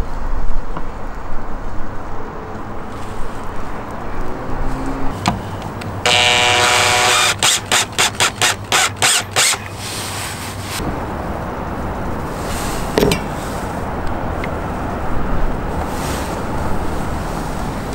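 Cordless drill driving a screw into a wooden trim ring. A steady motor whine lasts about a second, followed by a quick run of short pulses. A constant background hiss runs underneath.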